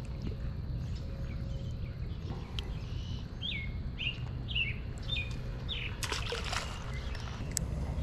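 A bird calling a series of about six short falling notes, roughly two a second, over a steady low outdoor rush. A brief burst of rustling noise comes about six seconds in.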